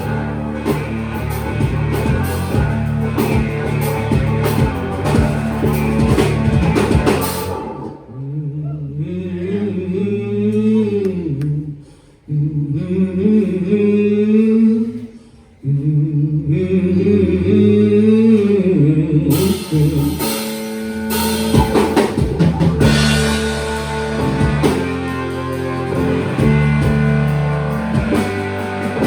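Live rock band with drums, electric guitar, bass and keyboards playing loudly; about seven seconds in the full band drops away to a sparser passage of bending, sliding low notes, and the full band comes back in near the twenty-second mark.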